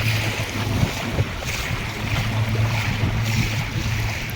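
A river boat's engine running with a steady low drone, over the rush of water and wind buffeting the microphone.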